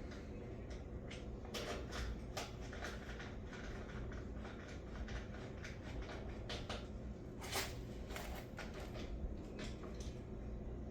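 Scattered light clicks and knocks of small parts and tools being handled, over a steady low hum; the sharpest knock comes about two-thirds of the way through.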